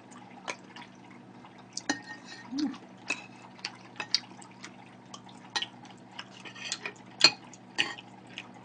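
Close-miked eating sounds: wet mouth clicks and smacks from chewing soup, with irregular clinks of metal utensils against the dishes, the sharpest about seven seconds in. A brief closed-mouth hum about two and a half seconds in.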